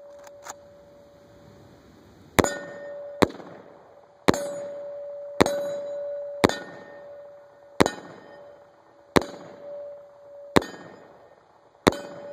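Rifle fire with 7.62x39 FMJ, about ten shots roughly a second apart. Each hit rings a 3/8-inch AR500 steel target plate, and its clear metallic tone hangs on between shots.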